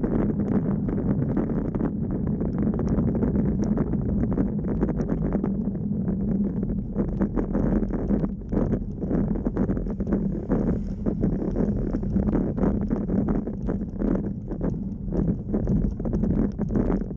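Wind buffeting the microphone and tyre rumble on tarmac from a camera mounted on a bicycle climbing a steep hill. About seven seconds in, an uneven run of rhythmic knocks and pulses joins the steady noise.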